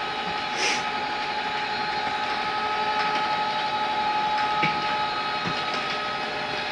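Electric bunk lift motor running steadily with a whirring hum as it raises the bunks. A higher tone joins partway through and drops out near the end. There is a light click under a second in.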